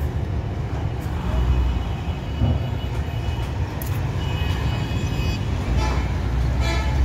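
Coach bus engine running with a deep, steady rumble as the bus pulls up a sandy bank from a ferry pontoon. A vehicle horn toots about four seconds in and again near the end.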